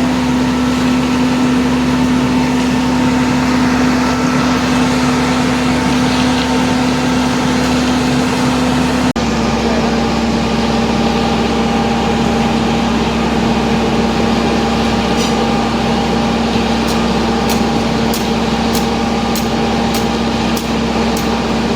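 Diesel engine of an Ajax 4300 self-loading concrete mixer running steadily with a strong hum. There is a brief break about nine seconds in, after which the hum runs slightly lower. Faint regular ticking comes in during the second half.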